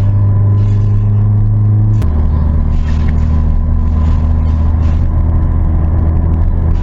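Car engine running steadily, its pitch dropping abruptly about two seconds in, like an automatic gearbox shifting up, then holding steady at the lower pitch.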